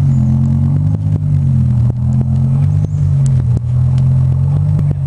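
BMW M6's V10 engine idling steadily through an Eisenmann aftermarket exhaust, a low, even idle with no revving.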